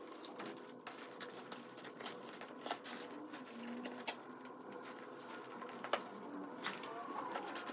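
Rustling of a padded waterproof nylon footmuff with scattered clicks and knocks as it is fitted into a pushchair seat; the sharpest knock comes about six seconds in.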